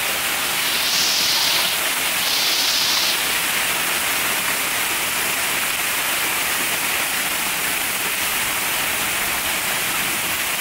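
Heavy hail pounding down, a dense, steady clatter of hailstones striking the ground and surfaces, noisy as can be. It grows briefly louder and hissier twice in the first three seconds.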